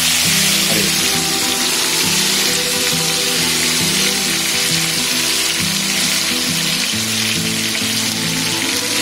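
Hot oil sizzling steadily around marinated chicken drumsticks shallow-frying in a pan, with background music underneath.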